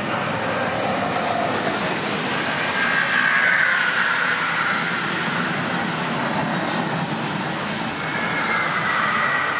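Locomotive-hauled Flixtrain passenger train rolling past, a steady loud rumble of wheels on rail. High squealing from the wheels comes in about two and a half seconds in, fades after about five seconds, and returns near the end.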